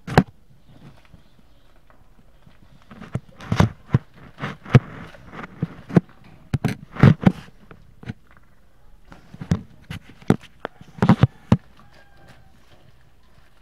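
Irregular knocks and scuffles close to the microphone, coming in scattered clusters from about three seconds in until near the end, as the dogs move about while playing.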